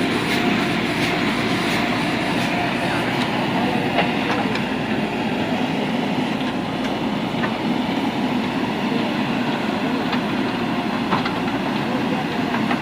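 JCB 3DX backhoe loader's four-cylinder diesel engine running steadily under working load, with a few faint clicks.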